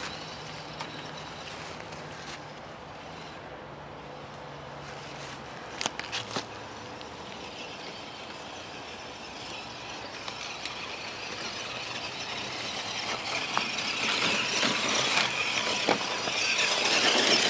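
Axial SCX10 Deadbolt radio-controlled crawler truck driving, its electric motor and drivetrain whining and growing steadily louder over the second half. A few faint clicks come about six seconds in.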